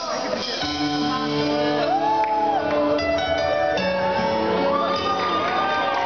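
A live pop band playing a song intro with long sustained chords, with audience members shouting and cheering over it in a large hall.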